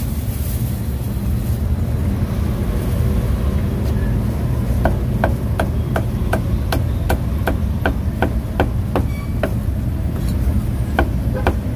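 Steel meat cleaver chopping through cooked pork onto a thick wooden chopping block: a run of even chops about three a second starting a few seconds in, a short pause, then two more chops near the end. A steady low rumble of street traffic lies under it.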